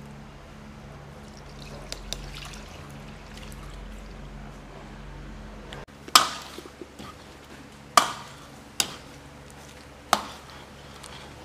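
Water bubbling in a pot of blanching broccoli, with light ticks of a wire skimmer. Then a metal ladle stirring sauce in a wok, clanging sharply against the pan four times, each clang ringing briefly.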